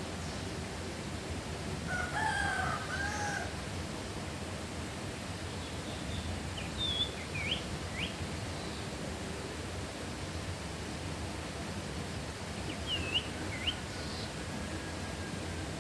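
A rooster crows once, about two seconds in, lasting around a second and a half. Small birds chirp a few times later, over steady low background noise.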